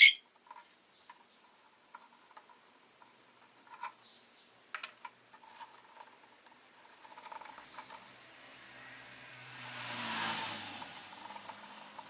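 Rosy-faced lovebird giving one sharp, loud chirp, then a few soft chirps and small clicks. A few seconds in, a passing street vehicle swells up and fades, loudest near the end.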